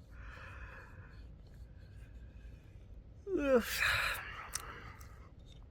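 A person sighing: a soft breathy exhale at first, then about three seconds in a louder sigh with a voice in it that drops in pitch.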